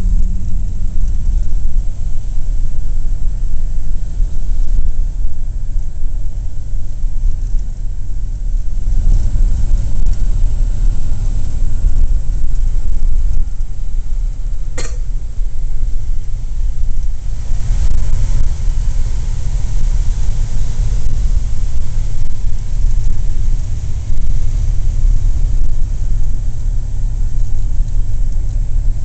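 Inside the cabin of a moving 1941 Plymouth: the flathead straight-six engine running with steady low road rumble. There is a single sharp click about halfway through, and the tyre and road hiss grows a little louder soon after.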